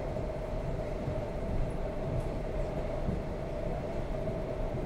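ED4M electric multiple unit running along the line, heard from inside the passenger car: a steady rumble with a steady hum over it.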